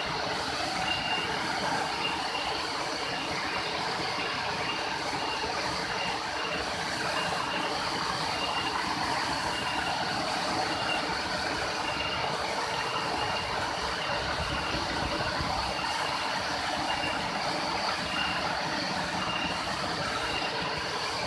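Steady rushing of a waterfall, a constant noise with no change in level. Over it, a short high chirp repeats about twice a second.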